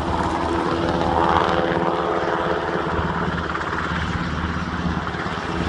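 UH-60 Black Hawk helicopter flying past, its rotor and engine sounding steadily and swelling slightly about a second in.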